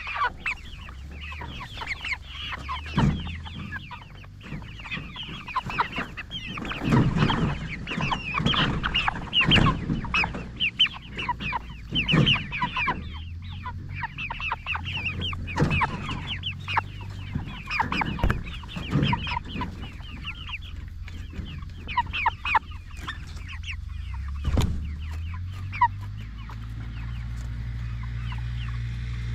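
Flock of Cornish Cross broiler chickens clucking and peeping continuously, busiest in the first half, over a steady low hum that gets louder near the end.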